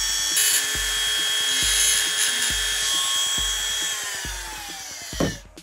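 Small handheld rotary tool with a grinding bit running at a steady high whine, working on the epoxy coat of a wooden lure. About four seconds in its pitch falls as it winds down, and it stops near the end.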